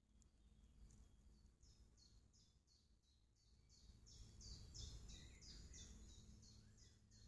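Faint, high, evenly repeated chirps, about two or three a second and each dropping slightly in pitch, from a small bird calling in the surrounding woodland, over a low rumble.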